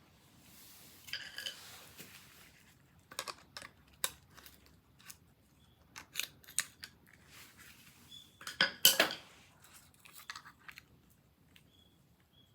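Scattered sharp clicks and light knocks of small hard parts being handled, with a louder cluster about nine seconds in.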